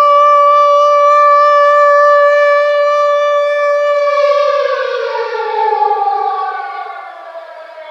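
Air raid siren holding a steady, high wail, then about four seconds in winding down, its pitch sliding lower as it fades.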